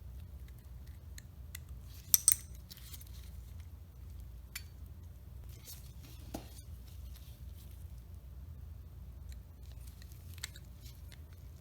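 A few faint metallic clicks and taps as a thin hex wrench is pushed into the release hole on a Schlage lever handle's shank and the lever is worked off its spindle. The loudest is a quick double click about two seconds in, with single lighter ticks scattered after it.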